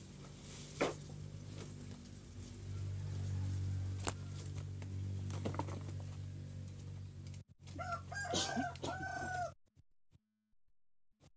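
A rooster crowing near the end, several arched calls that stop abruptly. Before it there is a steady low hum and a few sharp knocks as dry coconut husks are handled.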